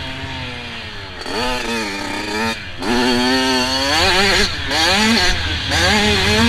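Radio-controlled off-road car's motor revving up and down as it drives. Its pitch sags, then climbs steeply about three seconds in, and near the end it surges in short repeated revs.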